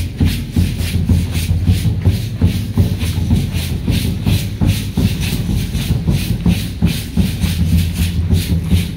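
A troupe of dancers shaking handheld rattles together in a steady rhythm of about four strokes a second, over a dense low thumping of stamping feet and accompaniment.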